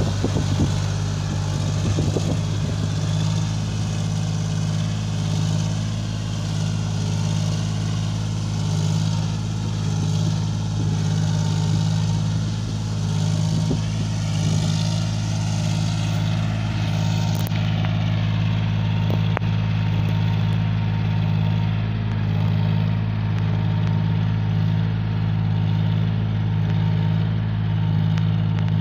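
John Deere 5036D tractor's three-cylinder diesel engine running at a steady speed under load, pulling a fully loaded trolley: a continuous low drone with a slight regular pulse.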